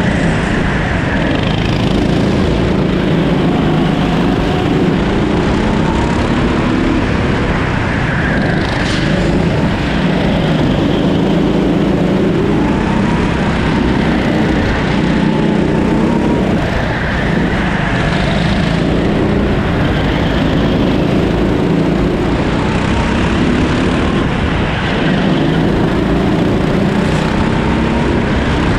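Rimo 13 hp rental kart's engine running hard, its pitch rising and dropping back again and again as the kart accelerates out of corners and lifts into the next ones.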